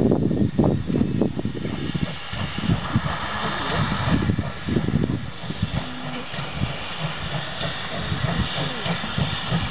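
Steam locomotive passing with a steady hiss of escaping steam, which grows louder about two seconds in, over an uneven low rumble.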